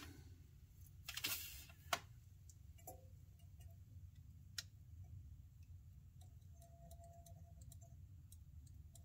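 Quiet room tone with a few light clicks and taps, mostly in the first half, as a soldering iron and solder wire are handled while tinning LED legs.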